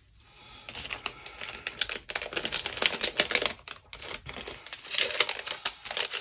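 Clear cellophane packaging crinkling in the hands as a small packet of scrapbook pieces is handled and opened: a fast, uneven crackle of many small clicks, briefly easing about two and four seconds in.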